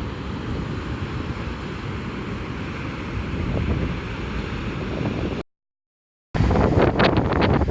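Storm surf and strong typhoon wind, with wind buffeting the microphone. The sound drops out completely for about a second past the middle, then comes back louder, with heavy gusty buffeting on the microphone.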